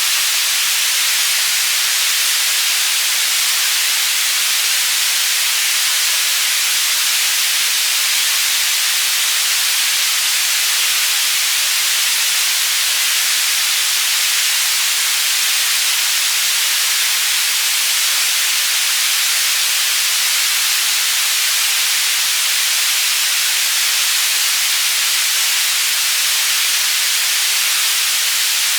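Synthetic white noise played as a tinnitus masker: a steady, even hiss that never changes, strongest in the high treble with little low end.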